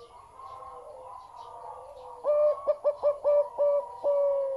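Zebra dove of a big-voiced song line cooing. About two seconds in it gives a loud rapid run of short staccato coos, ending on a longer held note. Fainter bird calls come before it.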